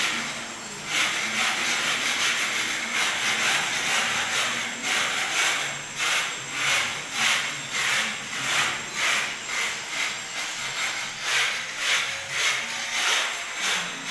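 Broom sweeping a concrete floor in short, scratchy strokes, about two a second.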